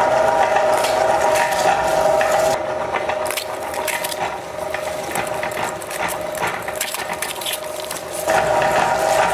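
Meat grinder running with a steady whine. From about two and a half seconds in, dense crackling takes over as the auger crushes crisp, hollow fuska (pani puri) shells, and the whine grows louder again near the end.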